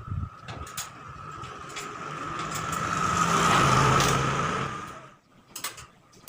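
A motor vehicle passing by: its engine grows louder to a peak about halfway through, then fades out about five seconds in, over a steady high whine.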